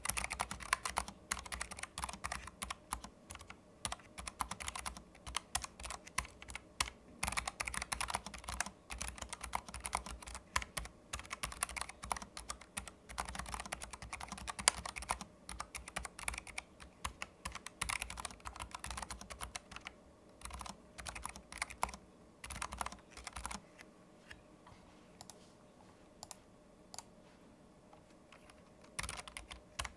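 Typing test on a Keychron low-profile keyboard fitted with low-profile optical switches: fast, continuous key clicks. For a few seconds near the end the typing thins to occasional single keystrokes, then picks up again.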